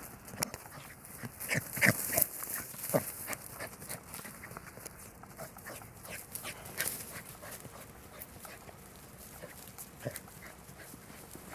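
Shiba Inu running over dry grass and soil: irregular thuds and rustles of its paws, loudest and busiest in the first three seconds.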